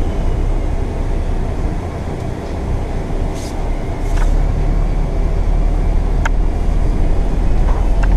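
Bus engine and road noise heard from inside a moving bus, a steady low rumble that grows louder about four seconds in as the bus picks up speed.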